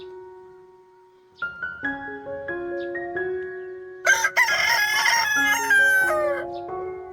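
A rooster crows once, a loud call of about two and a half seconds that falls in pitch at its end, heard over soft piano background music.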